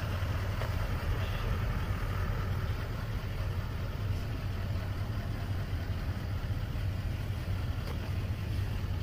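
Chevrolet pickup truck's engine idling, a steady low rumble.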